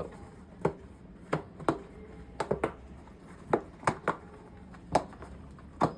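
Hands working a mountain bike tire onto its rim: a series of sharp, irregular clicks and snaps, about ten in all.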